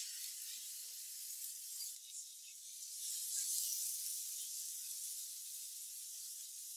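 Pineapple rings sizzling on a hot griddle plate: a steady frying hiss that swells a little midway.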